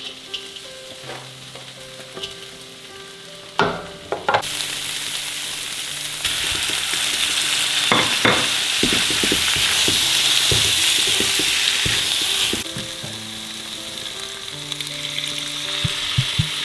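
Food stir-frying in a stainless steel wok. The sizzle is faint at first, jumps much louder about four seconds in, and eases again near the end. A metal spatula knocks and scrapes against the pan throughout.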